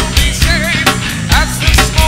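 Rock band recording: a drum kit beating steadily under a wavering, vibrato-laden melody line and low bass notes.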